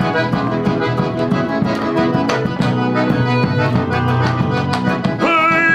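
Instrumental break of gaúcho band music led by accordion over a steady bass line and drum beat. About five seconds in, the band lands on a long held chord.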